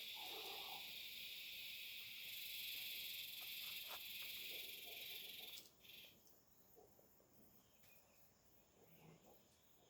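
Faint, steady high-pitched insect chorus that cuts off suddenly about five and a half seconds in, leaving only faint scattered sounds.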